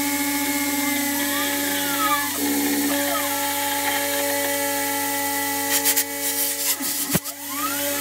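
DIY CNC router milling 6082-T6 aluminium plate with a 4 mm two-flute end mill, under a blast of lubricant: a steady whine of several held tones over a constant hiss, with a whine that rises and falls in pitch as the cutter moves along the profile. Around six to seven seconds in come a cluster of sharp clicks and a knock.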